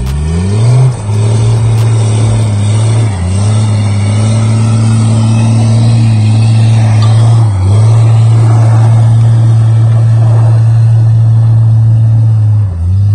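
A 1993 Dodge W250's 5.9-litre 12-valve Cummins straight-six turbo diesel revs up quickly, then holds at high revs with a few brief dips before easing off near the end.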